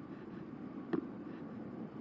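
Steady low rumble of a Carbo X eBike riding along, with wind buffeting the camera's microphone. A single sharp knock comes about a second in.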